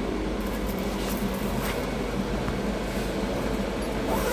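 Grow-tent ventilation fan running steadily, drawing air through a black duct hose, with a constant rush of air and a low hum.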